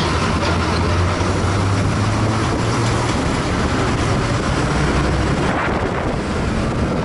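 Steady engine drone and road noise of a moving bus on a highway, heard from inside the bus.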